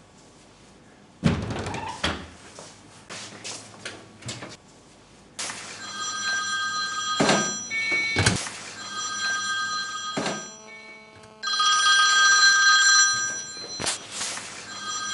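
Smartphone ringing with an electronic ringtone: it starts about five seconds in and repeats a short melody of steady beeping tones. A few sharp thumps and handling knocks sound before and during the ringing.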